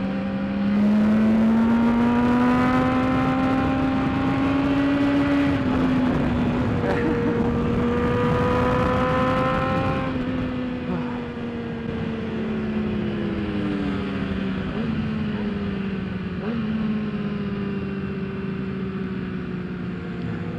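BMW S1000RR inline-four engine running at part throttle under wind rush. Its pitch climbs slowly, drops sharply with a gear change about six seconds in, then falls off gradually as the bike slows and settles into a steady drone. The wind rush is heaviest in the first half.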